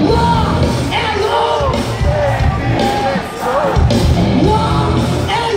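Rock band playing live through a concert PA in a large hall, a singer's voice over loud drums and bass, with yells from the crowd.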